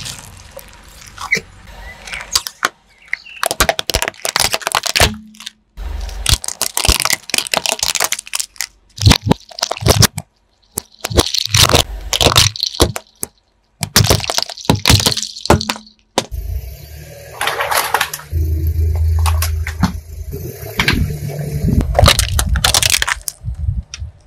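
Brittle objects cracking and breaking as a car tyre rolls over them, in a run of short clips that cut off suddenly several times. In the last third a steady low car engine hum runs under the cracks.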